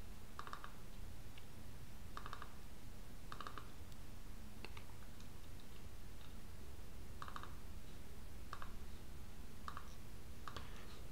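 Computer mouse clicking: about seven short bursts of quick double-clicks, spread a second or two apart, over a faint low hum.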